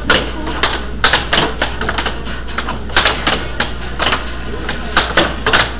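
Air hockey puck and plastic mallets clacking against each other and the table rails in quick, irregular runs of hits during a rally, over a steady low hum.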